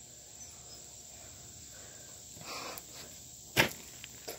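Quiet outdoor background with a steady high hiss, a soft rustle about two and a half seconds in, and one sharp slap about three and a half seconds in from children moving on a backyard trampoline.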